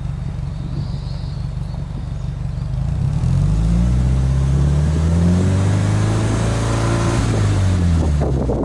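Subaru Impreza WRX STi's turbocharged flat-four engine, heard at the tailpipe. It idles, is revved up with a rising note about three seconds in, holds at higher revs for a few seconds, and drops back toward idle near the end.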